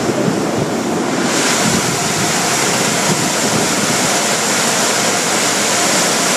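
Steady loud rushing and hissing of automatic car wash machinery running in the wash tunnel, turning hissier about a second in.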